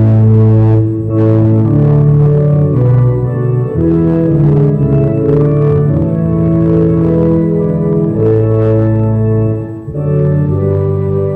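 Organ playing sustained chords that change slowly, with a brief dip in volume near the end.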